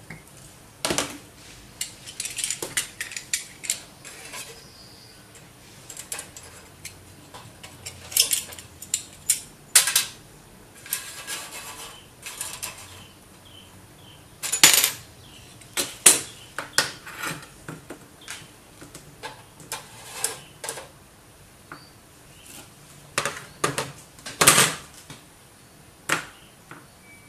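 Metal hand tools, a screwdriver and tweezers, clicking and scraping against ceramic processors and a steel hot plate as the solder-bonded metal caps are pried off the heated chips. The result is an irregular string of sharp clicks and clatters with a few short scraping stretches.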